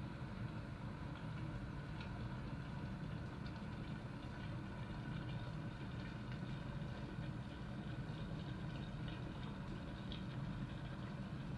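Cookworks glass electric kettle heating water: a steady low rumble with small scattered crackles that grow more frequent from about halfway through.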